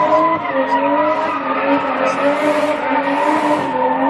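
A car doing a burnout: its engine is held at high, slightly wavering revs while the spinning tyres screech and smoke against the pavement.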